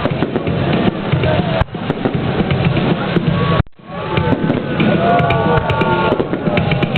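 Fireworks display going off: a dense, loud run of bangs and crackles, with a crowd's voices among them.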